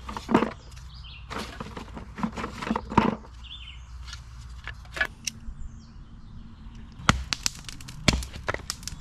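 Dry wood snapping and cracking, a run of sharp irregular snaps with the loudest about half a second in, about three seconds in, and near the end.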